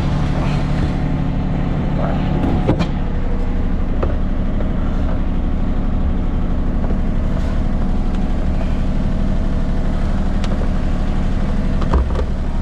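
Mini excavator's diesel engine running steadily, with a couple of sharp knocks from the machine or the wood it is handling, one about three seconds in and one near the end.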